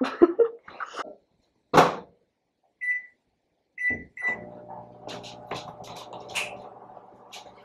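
A thud, then three short beeps from a microwave oven's keypad, and the microwave starts running with a steady hum, with light clicks over it.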